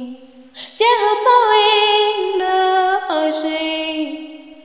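A woman singing: after a short break she comes back loud about a second in with long held notes that step down in pitch, then fades out near the end.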